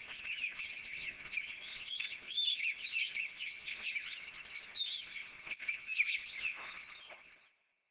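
Many small birds chirping and twittering together in a dense, overlapping chorus, fading out near the end.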